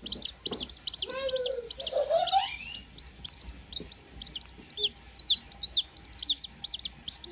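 Baby chicks peeping: a steady stream of rapid, high-pitched peeps. About a second in, a lower call rises in pitch over a second or so.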